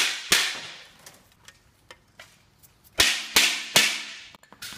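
Dead blow hammer striking a wood block pressed on a dented aluminum Sherman trap panel, pounding the dents flat. Two sharp blows at the start, a lull with a few light taps, then a run of three blows about three seconds in and one more near the end, each dying away quickly.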